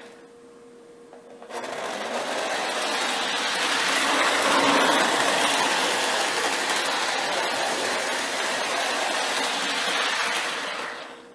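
Lionel GP-20 O-gauge diesel model locomotive running on three-rail track: its electric motor and gears whirring and its wheels rumbling on the rails. The sound is faint at first, swells about a second and a half in, and falls away again near the end.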